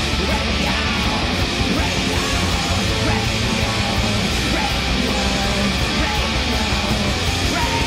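Rock band playing live: electric guitars, bass and a drum kit in a loud, dense heavy-rock passage.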